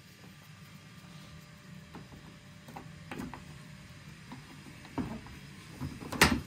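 Small parts being handled while fetching a fastener clip: scattered light clicks and knocks, with a sharper, louder click about six seconds in.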